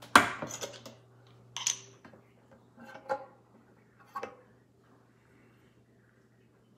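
A square metal sesame oil tin being handled and tipped to pour: a sharp click just after the start, then a few fainter clicks and taps over the next four seconds, after which the oil runs almost silently.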